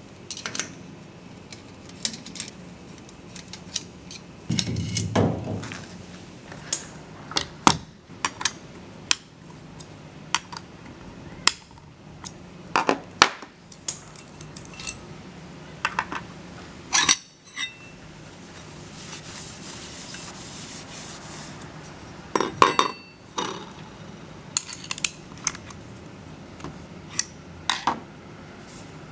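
Metal tools and parts being handled: scattered clinks, knocks and scrapes of metal on metal, with a heavier clatter about five seconds in and a quick run of knocks about two-thirds of the way through.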